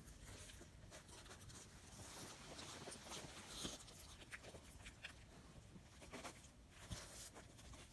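Cavalier King Charles Spaniel puppy chewing a chunk of raw fruit: faint, irregular crunches and clicks of its teeth, a few louder bites among them.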